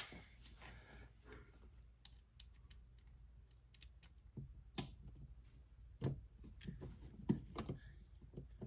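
Scattered light clicks and taps of a screwdriver and a light switch being worked into a wall electrical box, with a few sharper clicks in the second half.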